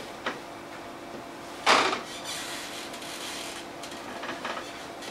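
Clothing rustling as a jacket is pulled off and handled, with a faint click near the start and one short, louder rustle about a second and a half in.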